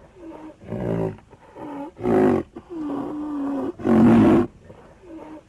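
Recorded animal roar sound effects: a series of deep roars and growls, loudest about 1, 2 and 4 seconds in, with a longer held call in between.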